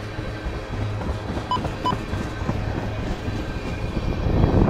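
Freight train of tank cars rolling past at track level: steady rumble of steel wheels on the rail with light ticking, swelling louder as a set of trucks passes close near the end. Two short beeps about a second and a half in.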